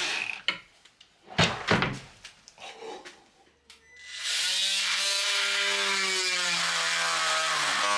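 A few sharp knocks, then a power drill starts about four seconds in and runs steadily at an even speed.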